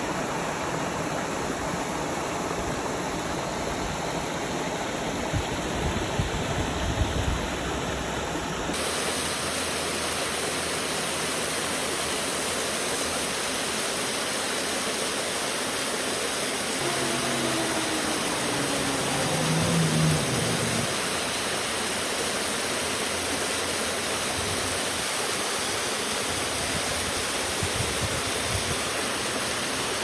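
Steady rush of water from a rocky creek and waterfall, a continuous even noise. A faint tone slides downward about two-thirds of the way through.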